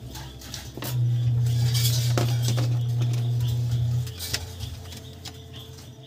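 Small clicks and taps of plastic and metal parts handled while a car stereo's faceplate is reconnected to its ribbon cable and chassis. A steady low hum comes in about a second in and stops about four seconds in, louder than the clicks.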